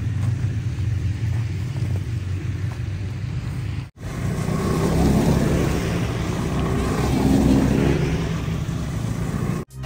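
Snowmobile engines running at low speed, a steady low drone. About four seconds in there is a brief break, after which the engines sound louder and closer, their pitch rising and falling a little as the machines move.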